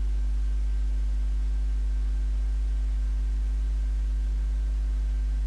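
Steady low electrical mains hum with its overtones, unchanging throughout.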